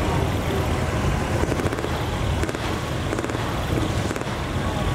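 Diesel truck engine idling steadily.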